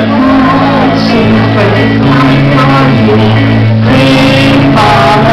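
Live rock band playing a song: a woman's lead vocal over electric guitar, bass guitar and drums, loud and amplified.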